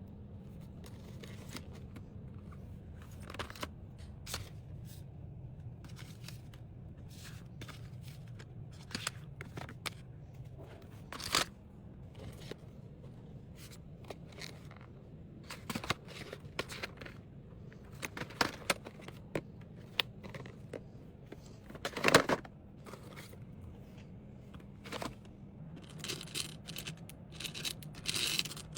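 Packing sounds from small items and their packaging being handled: scattered clicks, taps and scrapes, with louder knocks about 11 and 22 seconds in, over a steady low hum.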